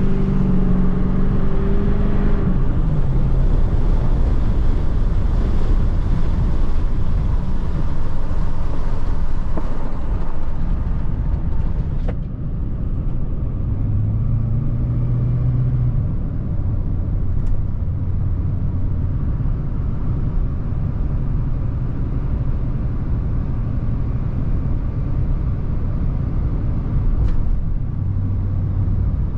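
Pickup truck on the move: steady engine and road rumble, the engine note shifting a few times.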